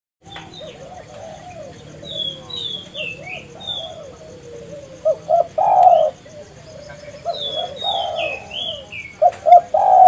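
Spotted dove (tekukur) cooing again and again in its rolling phrases, with the loudest, longest coos around six seconds and again near the end. Two short runs of high, falling chirps sound over it, about two seconds in and around seven and a half seconds.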